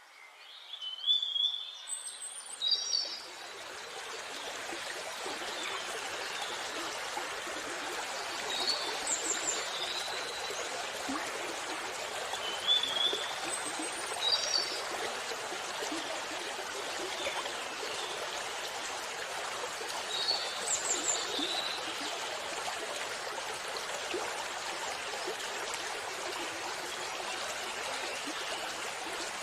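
Waterfall water rushing in a steady hiss that fades in over the first few seconds. A songbird chirps short calls every few seconds over it, loudest near the start.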